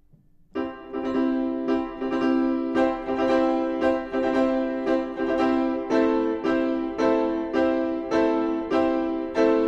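Background music: a piano-like keyboard begins about half a second in, playing a steady pattern of struck notes about twice a second.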